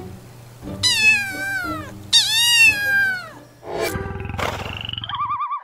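An orange tabby kitten meowing twice, two long high cries that fall in pitch at the end, over soft background music. About four seconds in, a short logo sound effect follows: two sharp hits and then warbling tones.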